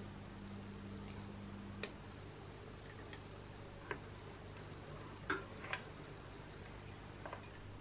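A plastic spaghetti spoon knocking against the sides of a stainless steel pot while stirring thick, hot jam: about five faint, sharp clicks at uneven intervals, the loudest a little past the middle, over a low steady hum.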